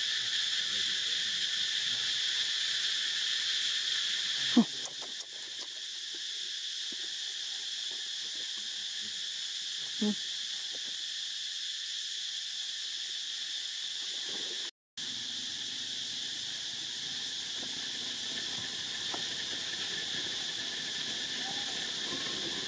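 Insects droning steadily, a high, even buzz without breaks. A sharp click about four and a half seconds in is the loudest moment, and there is a fainter knock near ten seconds. The sound cuts out completely for a moment about fifteen seconds in.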